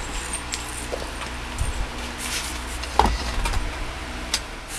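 Small clicks, taps and clinks of a soldering iron and tools being handled on an electronics workbench, with a sharper knock about three seconds in, over a low steady hum.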